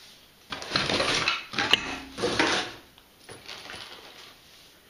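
Hands rummaging through a cardboard box's compartments, with packaging and parts rustling and knocking in three or four short bouts and a sharp click about two seconds in.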